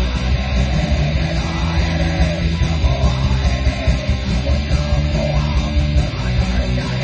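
Loud heavy rock music with guitars, playing steadily.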